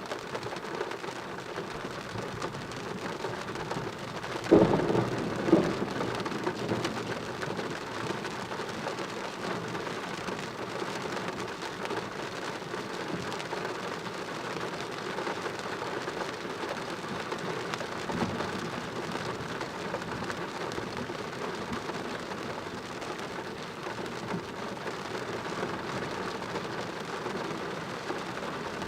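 Heavy rain falling steadily during a thunderstorm, with a sudden loud thunderclap about four seconds in, a second crack about a second later, then the thunder dying away under the rain.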